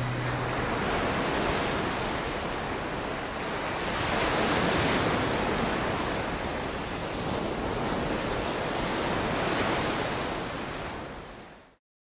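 Ocean surf, a steady rush of breaking waves that swells about four seconds in and again near nine seconds, then fades out just before the end.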